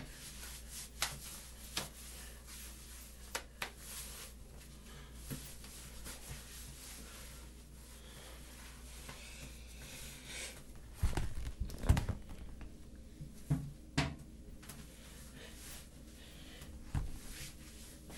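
Scattered clicks and knocks over a faint steady low hum, with a burst of louder thumps and rustling about eleven to twelve seconds in and a few single knocks after it.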